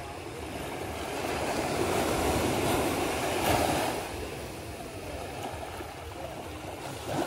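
Gentle surf on a sandy shore: a small wave washes in, swelling about two seconds in and falling away by about four seconds.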